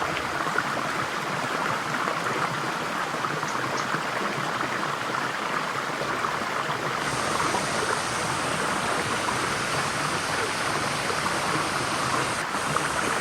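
Large waterfall rushing, a steady, even sound of falling water.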